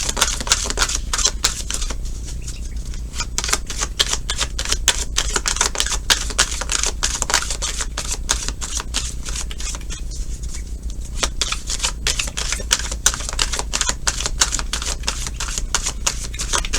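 A deck of tarot cards being shuffled by hand: a dense, irregular run of small clicks and card slaps, over a steady low hum.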